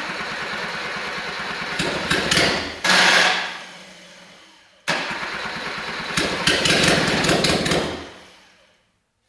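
Freshly rebuilt Suzuki F10A four-cylinder engine on a test stand, cranked and started twice. Each time it runs briefly, gets louder, then dies away. The engine still has a small problem on this first start.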